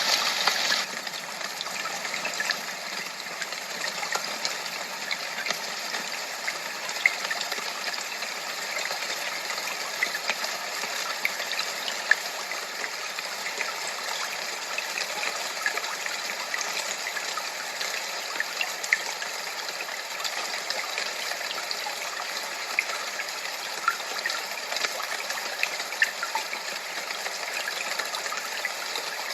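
Steady rush of running water, with small splashes and pops scattered through; a little louder in the first second.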